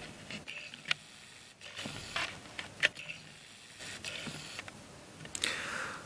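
Faint handling noise of a plastic Dayan Bermuda Star puzzle cube being turned over in the hands: a few sharp clicks and light rubs, with a short rustle near the end.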